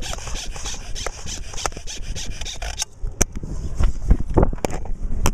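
Rubbing, rasping noise right against the camera microphone in quick repeated strokes, as the camera and the player's gear shift and scrape. About three seconds in the hiss stops and low thuds and knocks follow, with a few sharp clicks.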